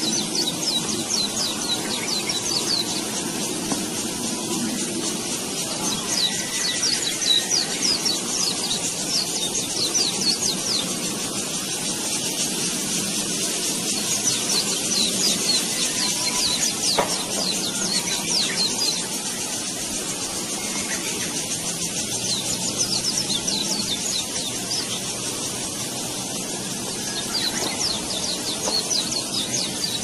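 Weaver birds (manyar) singing: rapid, buzzy, sizzling chatter in repeated bursts of one to three seconds, over a steady hiss.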